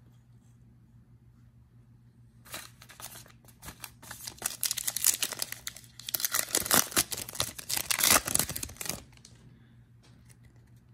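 A foil football-card pack wrapper being torn open and crinkled by hand. It starts about two and a half seconds in, is loudest in the middle, and stops about a second before the end.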